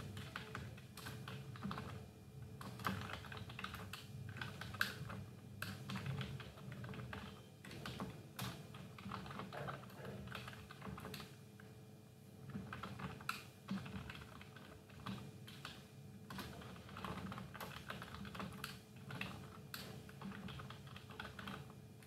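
Computer keyboard typing in quick irregular runs of keystrokes with short pauses between them, over a faint steady hum.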